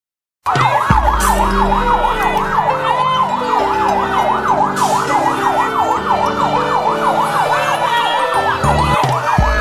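A siren in fast yelp mode, its pitch sweeping rapidly up and down about three times a second. It starts abruptly about half a second in, with lower steady tones underneath.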